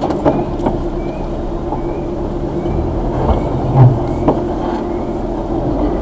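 Suzuki Jimny 4x4's engine running steadily at low speed, heard from inside the cab, with a few knocks and rattles as it crawls over a rough dirt track.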